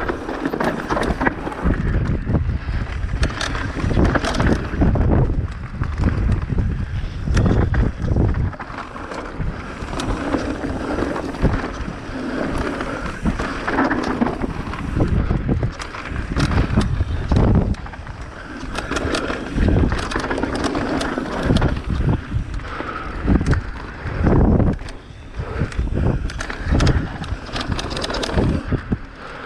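Electric mountain bike ridden down a dirt trail: a steady rumble of tyres on dirt with frequent knocks and rattles over bumps, and wind buffeting the microphone.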